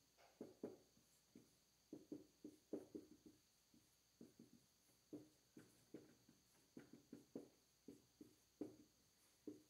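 Marker writing on a whiteboard: faint, irregular short strokes, several a second.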